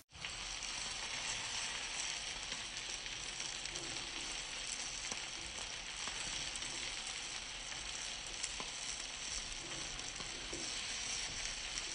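Chickpea and paneer curry sizzling steadily in a frying pan while it is stirred with a wooden spatula, with a few faint clicks from the spatula.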